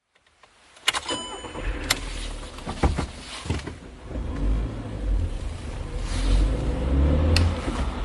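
A car running, a steady low rumble with a few sharp clicks, about a second in, two seconds in and near the end.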